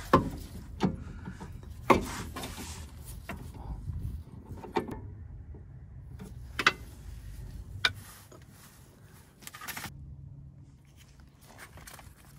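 Scattered metallic clinks and knocks of hand tools and steering linkage parts being handled under a car. There are about seven sharp knocks over the first eight seconds, then quieter handling noise.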